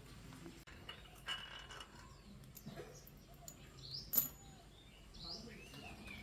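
Small birds chirping now and then in short rising calls, with scattered light clicks and taps; one sharp click about four seconds in is the loudest sound.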